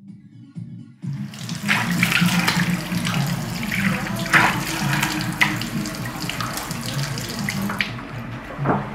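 Water running from a bathroom sink tap and splashing over hands as they wash. It starts about a second in and stops near the end.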